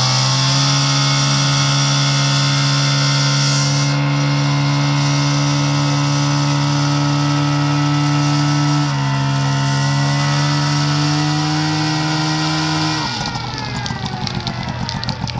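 Portable fire pump's engine running hard at steady high revs, pushing water through the hose lines to the nozzles. Its pitch shifts slightly about nine seconds in, and near the end it falls and quietens as the revs drop.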